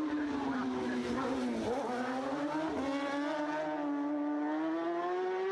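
Racing motorcycle engine running hard at high revs; its pitch dips once about a second and a half in, then climbs steadily.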